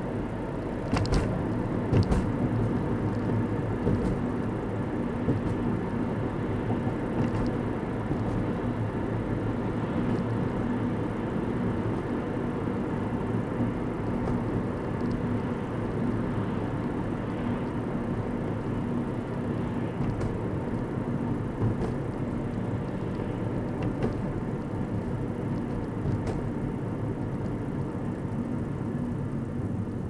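Steady road and engine noise of a car driving, heard from inside the cabin, with a low hum under tyre rumble. A couple of sharp knocks sound about one and two seconds in.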